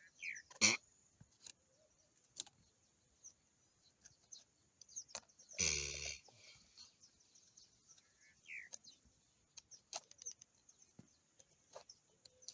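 A mating turtle gives one loud wheezy, grunting call about six seconds in, among scattered sharp clicks. Short falling bird chirps sound near the start and again later.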